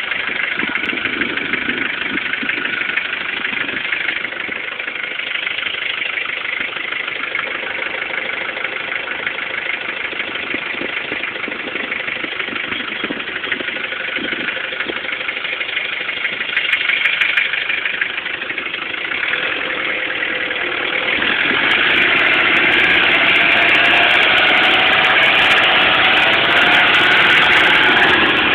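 Mahindra CL340 jeep's engine running steadily with a fine clattering tick. About two-thirds of the way in it gets louder and its note climbs as it works harder.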